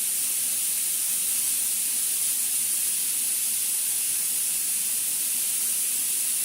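Steady, high-pitched hissing from a CNC cleaning machine running as it works across a surface.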